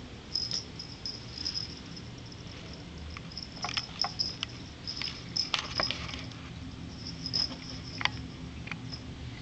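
Cats moving and pawing around, making scattered light taps, scratches and rustles with a few sharper clicks, over a low steady hum.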